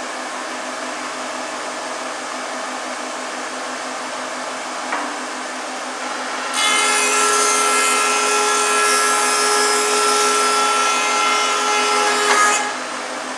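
Thickness planer running with a steady hum, then about six and a half seconds in the cutterhead starts planing a board and the sound jumps to a loud whining rush of cutting for about six seconds. It cuts off abruptly near the end as the board clears the machine, and the hum goes on.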